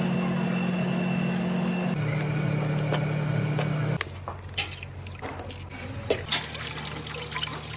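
A loud steady low hum that steps down in pitch about two seconds in and drops away about four seconds in. After it, over a fainter hum, eggs are cracked on the rim of a steel bowl, a few sharp cracks.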